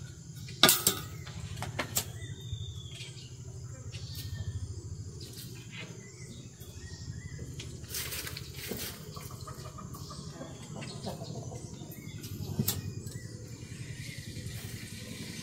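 A few sharp clicks and knocks from hand work, with cord and a blade being handled while a plastic poultry feeder is hung up; the loudest comes about a second in. A low steady hum sits underneath.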